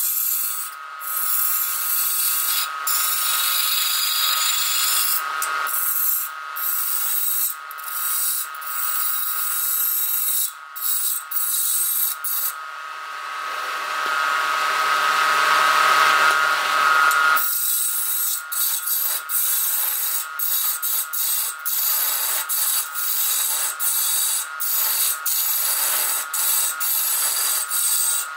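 Wood lathe running while a turning gouge cuts a spinning wooden vase blank: a steady whine under the scraping hiss of the cut, broken by many brief gaps as the tool lifts. For a few seconds in the middle it becomes a louder, continuous rush.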